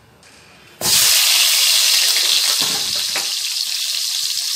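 Small masala-stuffed brinjals tipped into hot oil in a kadhai. A loud sizzle breaks out suddenly about a second in and carries on steadily as they start to fry.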